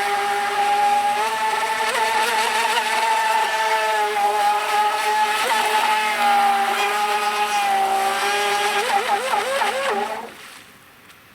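FEILUN FT012 RC boat's brushless motor whining under throttle, its pitch drifting up and down with throttle changes. Several quick rises and falls come near the end, then it cuts off suddenly about ten seconds in.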